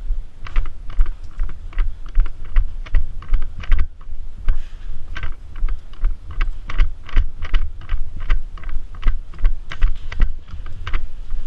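Quick footsteps crunching over rough ground, about two or three steps a second, with low thudding from a body-worn camera jostled by the movement.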